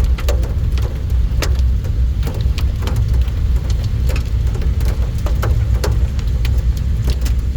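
Heavy rain falling. Irregular sharp taps of drops land close by, over a steady low rumble.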